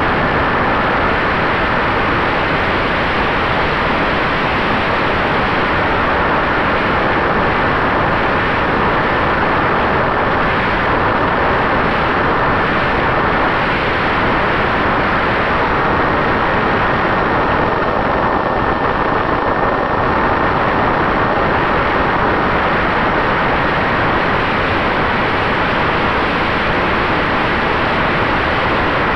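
Wind rush and motor whine picked up by a camera riding on an RC flying wing in flight: a loud, steady rushing noise with a thin steady whine through it that rises slightly about halfway through.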